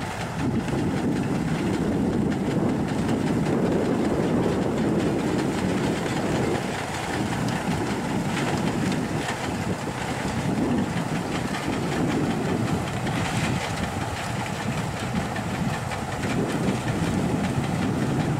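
Heavy snow-clearing trucks working through deep snow, a plough truck and a truck-mounted rotary snowblower: a steady, dense mechanical rumble of truck engines and the blower churning and throwing snow.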